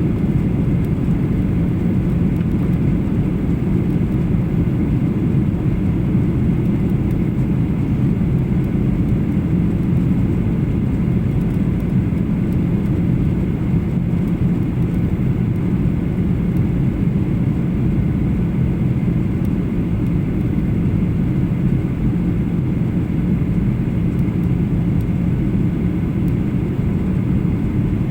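Steady drone of a Boeing 737-800 cabin in flight: engine and airflow noise heard from inside the cabin, deep and unchanging, with a faint steady hum over it.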